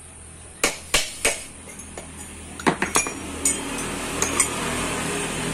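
Sharp metal knocks and clinks, in short groups, as a steel punch is worked against the worn bearings to drive them out of the scooter's driven-pulley shaft. A steady background rush grows from about halfway.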